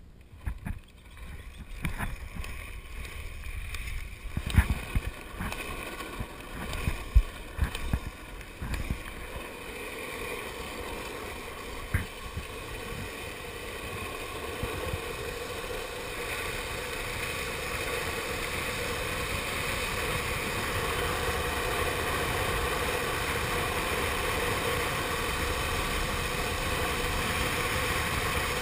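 Downhill longboard wheels rolling on asphalt with wind rush, a steady rumble that grows gradually louder as the boards gain speed. A scatter of sharp knocks and clacks in the first several seconds, the loudest about four and seven seconds in.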